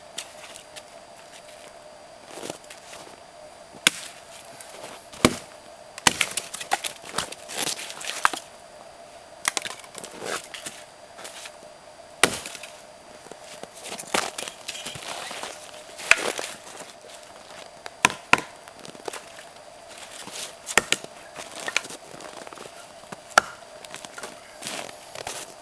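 Axe splitting firewood: sharp chops into wood, spaced irregularly a second or a few seconds apart.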